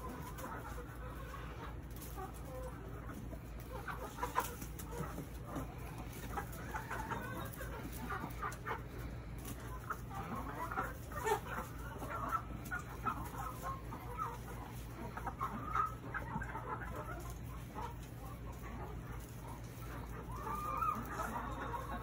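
A flock of backyard chickens clucking, short calls overlapping throughout, as the hens peck at fruit treats.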